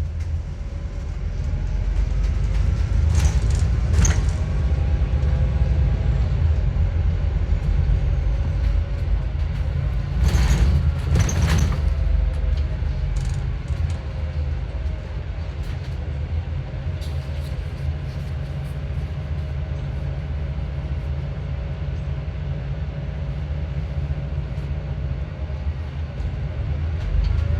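Inside an Alexander Dennis Enviro400 MMC double-decker bus under way: the engine rumbles steadily under a whine that rises and falls with engine speed, taken for a bad alternator. Two pairs of brief sharp sounds come about three and ten seconds in.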